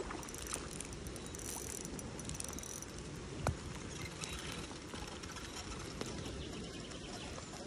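Spinning reel being cranked to bring in a hooked trout, its gears whirring with fine clicking, over a steady hiss of rain. A single sharp knock about three and a half seconds in.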